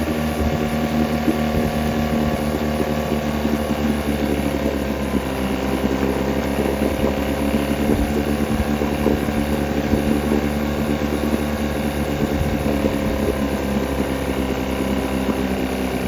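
1971 Evinrude 6 hp two-cylinder two-stroke outboard motor running at a steady speed after a tune-up.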